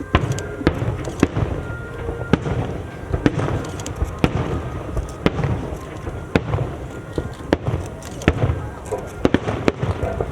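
Fireworks display: aerial shells bursting in a steady series of sharp bangs, about one a second and sometimes two close together, over a low rumble of booms.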